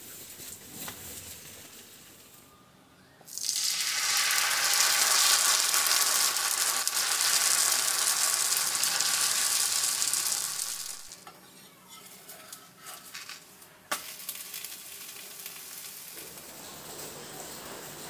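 Batter poured onto a hot iron griddle, sizzling loudly. The sizzle starts suddenly a few seconds in and dies away after about eight seconds.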